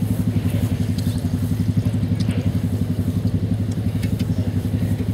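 An engine idling steadily, a low hum with a fast, even pulse.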